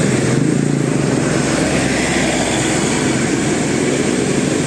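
A motor vehicle's engine running close by: a loud, steady, rough rumble with no change in pace.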